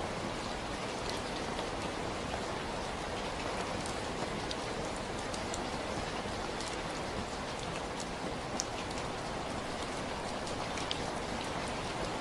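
Steady rainfall: an even hiss of rain with scattered individual drops ticking throughout.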